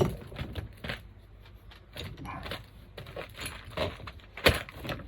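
Tools and small metal parts being handled during work: scattered clicks and clinks, with sharp knocks at the start and about four and a half seconds in.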